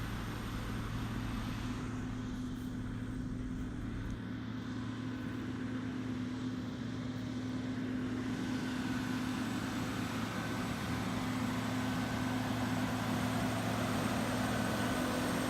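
Agco Star 8360 tractor engine running steadily under load while it pulls a Balzer slurry tank injecting liquid manure, a steady low hum with a rushing noise that grows louder in the second half.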